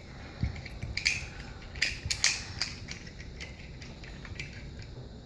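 Plastic toy pieces being handled, giving a run of short clicks and rustles in the first three seconds, then quieter.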